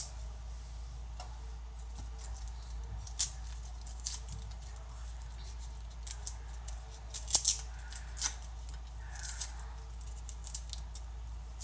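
Garlic being handled and cut: sporadic light, crisp clicks and rustles, irregularly spaced, over a steady low hum.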